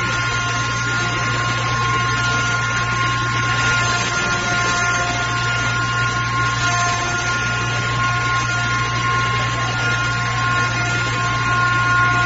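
Stainless-steel mill grinder running steadily: an even, loud hum with a steady high whine over it.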